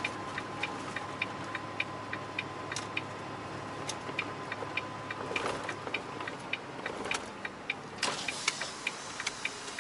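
Truck turn-signal indicator clicking at an even pace, about two to three clicks a second, over the low hum of the truck cab. A faint steady high tone sounds alongside for most of the first seven seconds.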